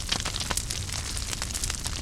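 Wood fire burning in a fireplace, crackling with many irregular sharp pops and snaps over a steady hiss and low rumble.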